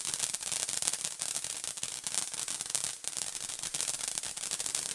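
Ground fountain firework spraying sparks: a steady hiss with dense, fast crackling.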